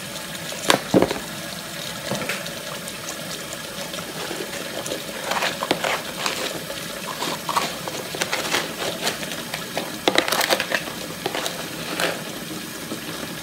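Hot water running from a faucet into a nearly empty plastic cooler, a steady rush splashing on the plastic bottom. A few sharp knocks stand out about a second in and again around ten seconds.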